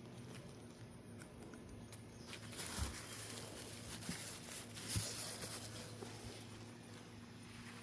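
Faint rustling and handling noise with two soft knocks, about three and five seconds in, over a low steady hum.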